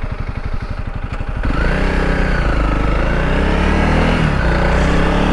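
Honda CRF300L Rally's single-cylinder four-stroke engine turning over slowly with distinct, separate firing pulses, then revving up about a second and a half in. After that its pitch rises and dips as the bike pulls away and accelerates.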